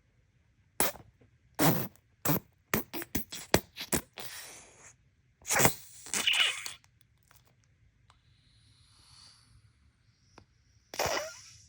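Toy packaging being handled and opened by hand: a series of sharp plastic crinkles, taps and short scrapes, with a quick flurry of them and then longer rustling bursts in the middle and one more near the end.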